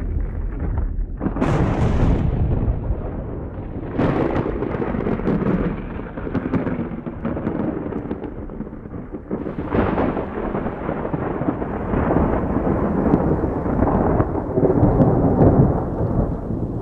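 Recorded thunderstorm sound effect from a lightning machine's thunder soundtrack: continuous rolling thunder rumble, with a sharp crack about a second in and fresh peals at about four, ten and fourteen seconds.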